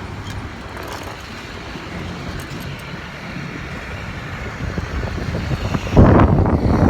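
Street traffic noise with a steady low rumble, swelling into a loud rushing noise near the end.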